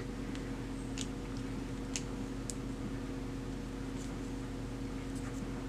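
Steady low electrical hum of the room, with a few faint soft clicks and ticks from fingers handling a small silicone dice mold.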